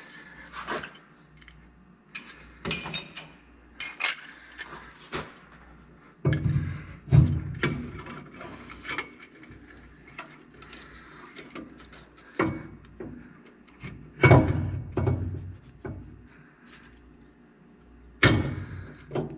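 Steel differential parts (spool, ring gear and shims) clinking and clunking as they are handled and set into a 12-bolt rear axle housing: scattered light metallic clinks with several heavier clunks.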